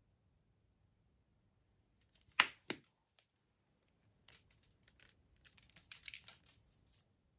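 Two sharp clacks about two seconds in, then from about four seconds a quick spatter of small ticks as rainbow sprinkles are shaken onto rolled ice cream and the steel cold plate.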